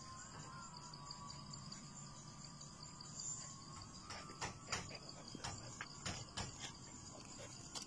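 Steady high chirring of insects. From about four seconds in, a run of short scratchy crackles close to the microphone as the puppy scrambles in loose dirt right at the phone.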